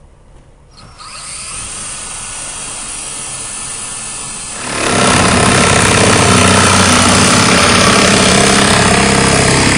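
Cordless drill with a quarter-inch bit boring through a plastic skimmer faceplate and the fiberglass pool wall. About five seconds in, a much louder power grinder starts up, grinding down the fiberglass surface, and runs steadily.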